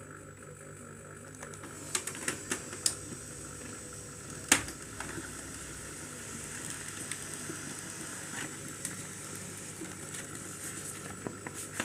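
HP LaserJet Pro M102a laser printer printing a test page with its newly fitted drum unit. Several clicks come around two to three seconds in and a sharper one a little later, then steady mechanical running as the sheet feeds through and comes out.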